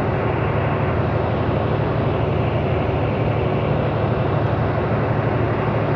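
Semi truck cruising at highway speed, heard from inside the cab: a steady low diesel engine drone with road and wind noise.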